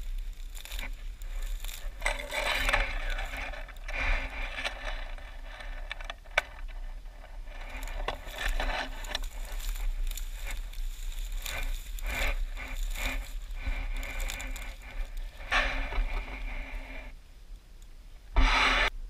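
Fishing reel cranked in spurts while bringing in a hooked fish, its gears whirring with short pauses between turns. Near the end comes a short loud splash at the water's edge as the fish is landed.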